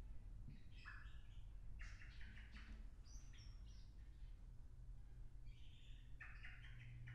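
Faint blackbird song: a handful of short warbled and chirped phrases, spaced a second or two apart, over a low steady hum.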